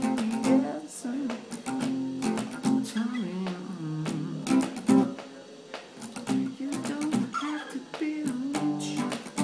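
Acoustic guitar strummed in chords, with a man singing over it.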